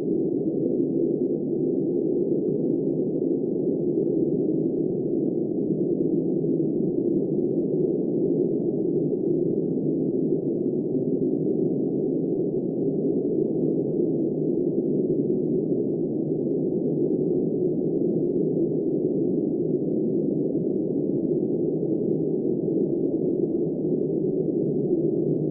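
Steady, muffled blizzard wind with a low howl and no gusts, changes or other events.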